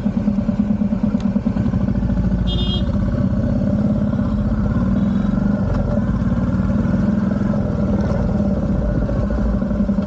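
Royal Enfield Meteor 350's single-cylinder engine running steadily at low speed, with its fast even thump, as the bike creeps through traffic.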